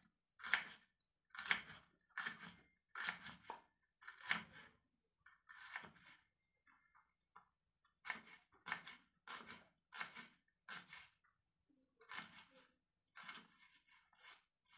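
Kitchen knife slicing shallots on a wooden cutting board: a run of short cuts, about one or two a second, broken by a couple of brief pauses.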